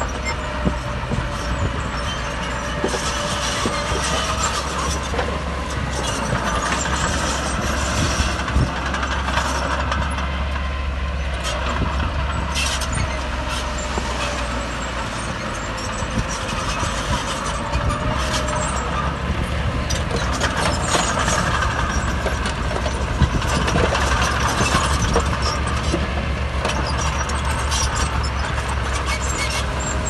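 Heavy diesel earthmoving machinery running steadily, with scattered sharp metallic clanks and knocks.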